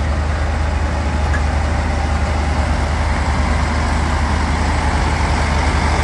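Diesel engine of a large tipper dump truck running with a steady low drone as the truck moves slowly.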